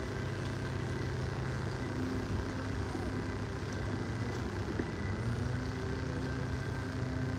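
Boat engine running at slow speed, a steady low drone.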